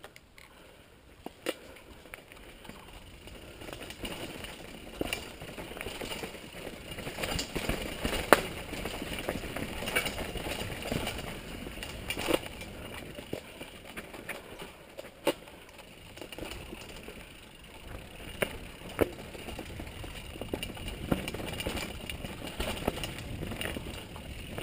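Mountain bike rolling down a dirt trail: tyres crunching over loose dirt and stones, with the bike rattling and sharp knocks as it hits bumps. The noise picks up a few seconds in as the bike gathers speed.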